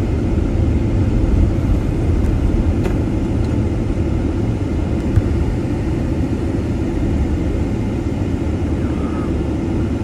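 Steady low rumble of a vehicle driving along a highway, its engine and tyre noise heard from inside the cab.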